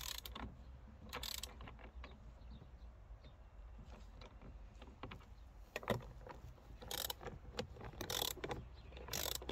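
Faint, scattered metallic clicks and clatter of hand tools at work as self-locking nuts are fitted and tightened, several short knocks standing out from about six seconds in.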